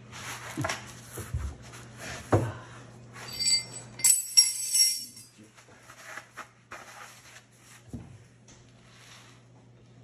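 Knocks and clatter of things being handled, with a burst of metallic clinking and jingling about three to five seconds in. A low steady hum underneath stops about four seconds in.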